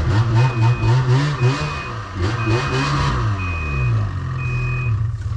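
Snowmobile engine revved up and down in short blips while the sled waits to be driven into the trailer. A vehicle's backup alarm beeps about once a second alongside it and stops near the end.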